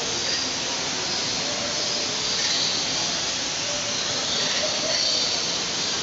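Steady, even rushing hiss of aviary background noise, with faint short high chirps now and then.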